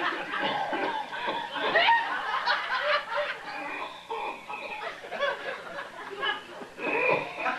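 People in a room chuckling and snickering, with a man's voice played back from a cassette tape.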